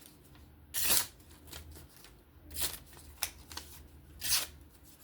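A sharp knife blade slicing through paper in three short strokes, each about a second and a half apart, with a few light clicks between them: a cutting test of the TRM Atom folding knife's factory edge.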